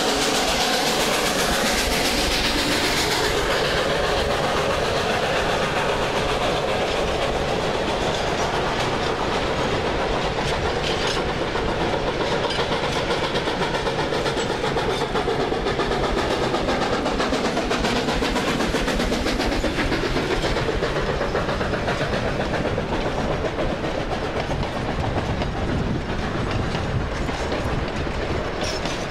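Rio Grande K-28 narrow-gauge steam train running, a steady noise of wheels and cars on the rails, with dense small clicks running through it.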